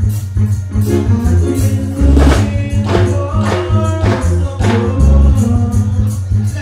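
Backing track played loud through a stage PA, with a deep repeating bass line and steady high percussion ticks, while a male singer sings live into a microphone.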